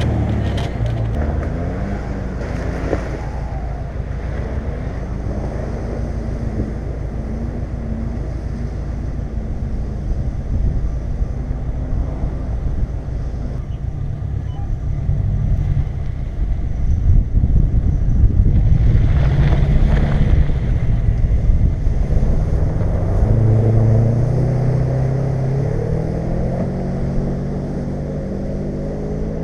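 Jeep Grand Cherokee WJ engine running under load off-road, its pitch stepping up and down as the throttle changes, getting louder from about the middle of the stretch with a brief rush of noise.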